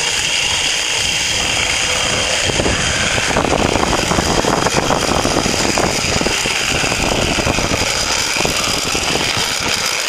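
Zip line trolley pulleys running along a steel cable: a continuous whirring rumble with a fast rattle that grows rougher about two and a half seconds in and eases near the end.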